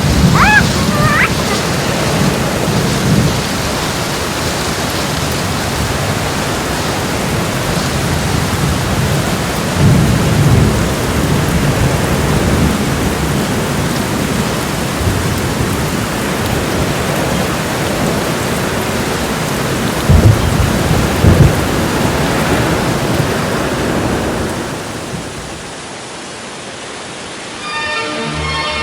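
Waterfall rushing: a loud, steady wash of falling water with low rumbling swells a few times. The rush drops away near the end, and music comes in.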